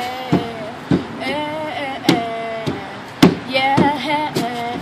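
A voice singing drawn-out, wordless notes over a steady beat of sharp knocks, about two a second.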